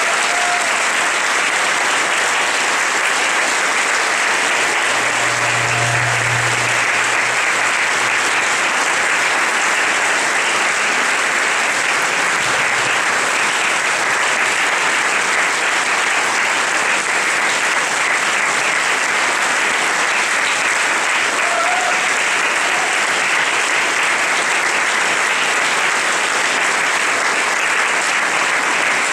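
Audience applauding, a long, steady round of clapping after a performance of a choir and orchestra.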